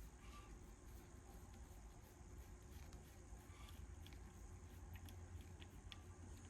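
Near silence: a faint low hum and a thin steady high-pitched tone, with a few faint light clicks scattered through it.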